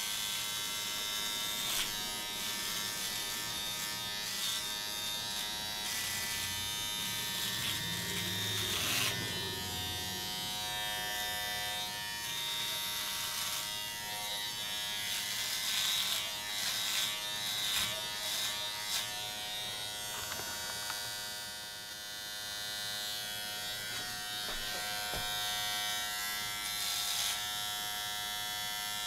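Philips Norelco MG9000 trimmer with its body-hair head buzzing steadily as it is run through chest hair, with short crackles now and then as the blade cuts.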